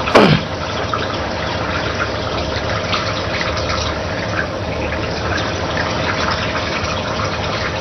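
Steady rushing of running water with a faint hum under it. Just after the start, a quick falling swish is the loudest sound.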